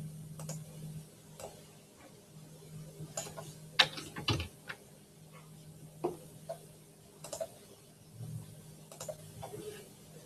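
Scattered clicks and knocks from someone at a computer desk, a few sharp ones close together about four seconds in, over a low hum that comes and goes.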